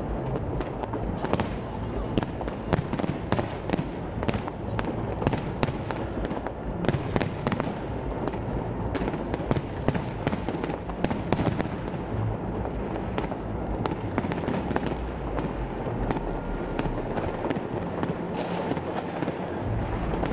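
An aerial fireworks display going off without pause: a dense, continuous crackle with many overlapping sharp bangs and pops.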